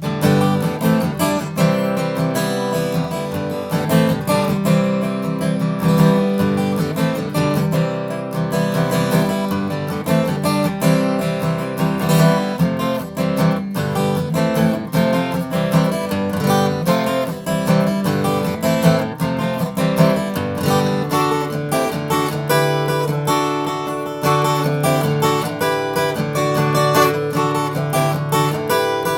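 Martin D-15M all-mahogany dreadnought acoustic guitar in E standard tuning, played with a mix of strummed chords and picked notes.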